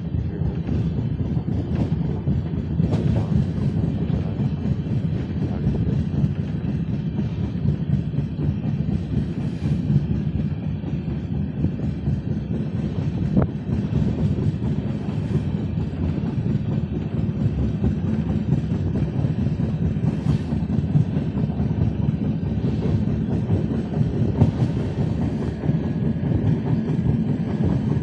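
Passenger train running along the track, heard from aboard: a steady low rumble of wheels on rail, with a few sharp clacks over rail joints.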